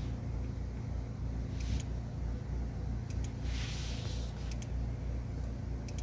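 2014 Nissan Altima's 2.5 L four-cylinder engine idling, heard inside the cabin as a steady low rumble with an uneven pulse. A few light clicks come over it from a finger tapping the scan tool's touchscreen.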